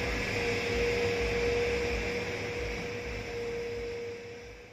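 Heavy machinery running: a steady engine hum with a constant whine over it. It fades out near the end.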